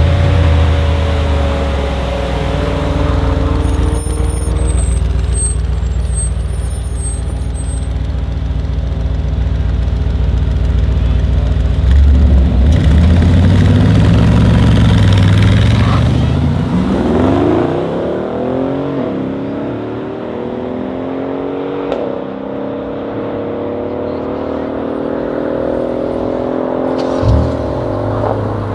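Two V8 cars, a Mercedes-AMG S63 coupe with an Akrapovic exhaust and a Mercedes-AMG G-Class, running side by side, then launching hard about twelve seconds in. The engine note turns loud, its pitch climbs again and again through the upshifts, and it grows quieter as the cars pull away, with a short sharp crack twice near the end.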